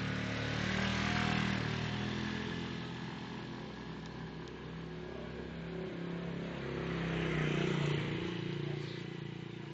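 A small motor scooter's engine pulls away and fades into the distance. Then a small motorcycle's engine passes close by, loudest about eight seconds in, and fades again.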